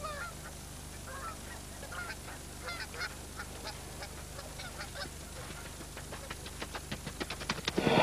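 Trumpeter swan giving short, faint honking calls. Near the end comes a run of quick taps that builds into a louder rush of wing flapping as the swan spreads its wings.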